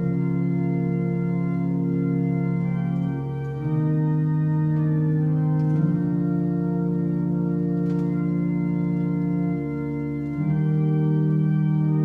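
Organ holding long sustained chords, moving to a new chord about three and a half seconds in, again near six seconds, and again just after ten seconds.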